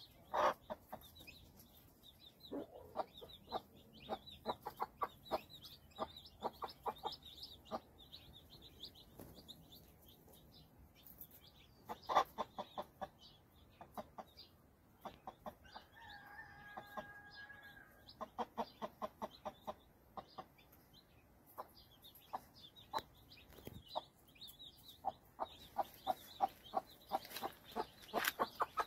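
Mother hen clucking in runs of short, rapid clucks while her newly hatched chicks peep, high and thin, around her.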